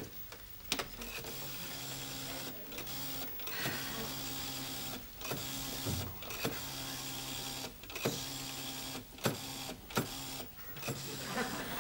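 Rotary-dial telephone being dialled: a long string of digits, roughly eight, each a short whirr of the dial spinning back, with a click between digits.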